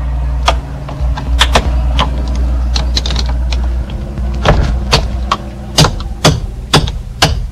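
A wrench pushed and worked against the chrome cap on a Ford steering-column ignition lock to force the cap off: irregular sharp metallic clicks and knocks, coming faster in the second half, over a low steady rumble.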